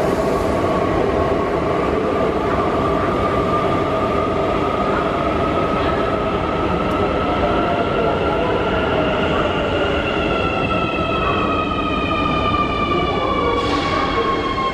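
Metro train running through an underground station: a steady rumble of wheels on rail with the whine of electric traction motors, one tone slowly rising and then falling, joined later by several higher whines gliding downward. A brief hiss near the end.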